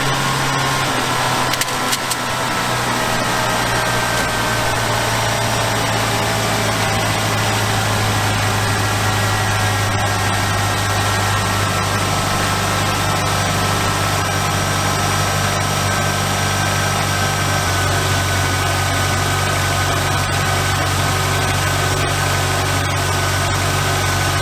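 1991 Ford Ranger's 2.3-litre four-cylinder engine idling steadily, freshly restarted, its pitch easing slightly lower over the first few seconds before settling.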